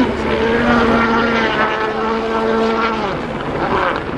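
Rally car engine at high revs on a stage: a step down in pitch at the start like an upshift, a steady pull, then the note falls away about three seconds in as the car lifts off or goes past.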